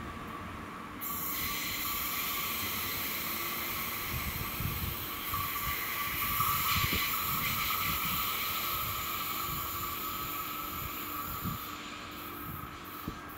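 Alstom Coradia Continental electric multiple unit (DB class 1440) running through a curve. Its wheels squeal steadily over a rolling rumble, loudest about halfway through.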